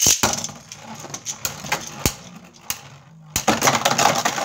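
Plastic-and-metal Beyblade Burst spinning tops whirring and scraping across a plastic Beystadium floor, with a sharp hit at the start and a few clicks as they knock together. From about three and a half seconds in they clash repeatedly in a dense, loud clatter.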